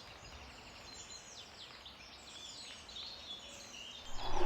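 Small birds chirping and twittering outdoors: many quick, high, falling chirps over faint background hiss. A louder noise cuts in just before the end.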